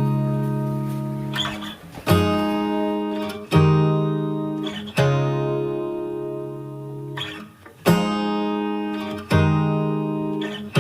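Background music: acoustic guitar strumming slow, ringing chords, a new strum about every second and a half.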